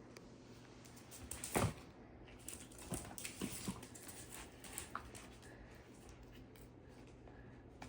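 Pigs moving about, with one short thump about a second and a half in, then scattered clicks and rustles.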